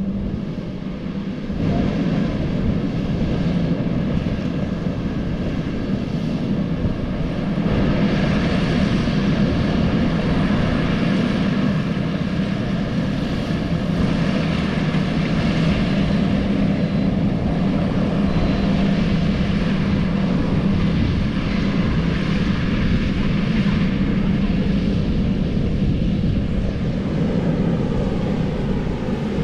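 Engine of a rice-harvesting machine running steadily under load, a constant loud drone with a strong low hum. It dips briefly about a second in, then picks up again.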